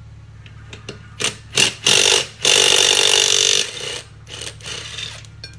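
Power tool run in several short bursts, the longest about a second, with a few light clicks before it, undoing the nuts that hold the go-kart's wheel to its hub.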